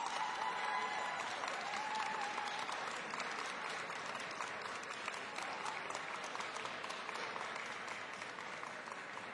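Audience applauding, the clapping starting abruptly and easing off slowly toward the end.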